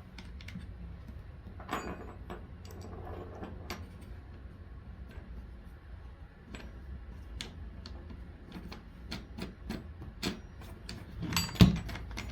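Light clicks and taps of a wing nut being unscrewed and parts of a hand planer being handled, irregular and scattered. There is one louder knock near the end.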